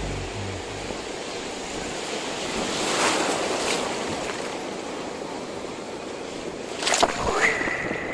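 Sea surf washing up the beach, swelling about three seconds in. A wave breaks close by near the end with a sharp splash, the loudest moment.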